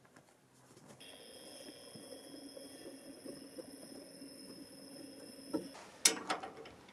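Metal clicking and clanking of a spanner being fitted to the bolt of a trailer's hitch bar, the sharpest clank about six seconds in, followed by a few lighter clicks. Before it, a faint steady hum.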